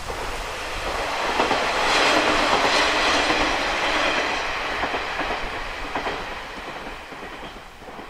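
Two-car KiHa 40 diesel railcar set passing by, its engine and wheels clattering over rail joints. It builds to a peak a couple of seconds in, then fades as the train moves off.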